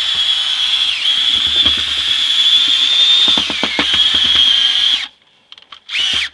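Handheld drill spinning a paddle mixer through a thick corn-meal mash in a plastic barrel. The motor whines steadily, its pitch dipping briefly a few times, with scattered knocks. It stops about five seconds in, then runs again in a short burst near the end.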